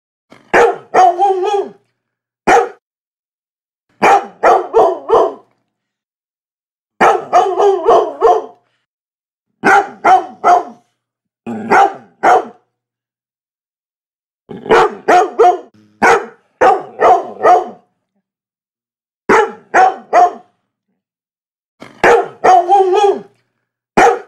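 A dog barking in quick runs of three to six barks, each run about a second long, broken by a second or two of complete silence between runs.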